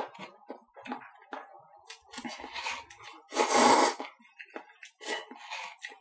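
A person slurping instant cup noodles from the cup: several short slurps, the loudest about three and a half seconds in, with quieter mouth sounds in between.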